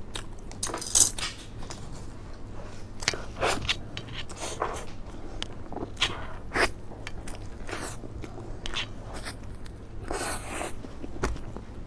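A person biting into and chewing a soft cream cake close to the microphone, heard as a scatter of short, separate mouth sounds.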